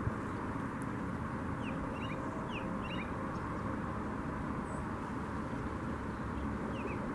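American robin singing: faint short whistled phrases of slurred notes, in a run from about one and a half to three seconds in and again near the end, over a steady low background rumble.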